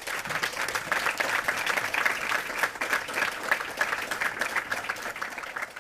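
Audience applauding: dense clapping from many hands that thins out and fades near the end.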